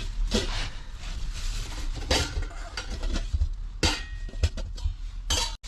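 Clinks and knocks of pots, dishes and utensils being handled, several separate clatters over a low steady rumble.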